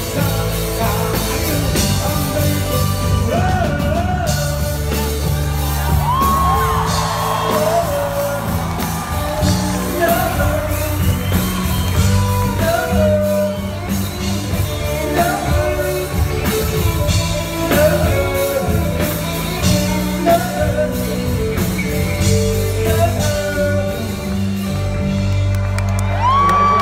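Live Filipino rock band performance with a male lead singer over a steady bass and band backing, in a large hall. Near the end he rises to a high note and holds it.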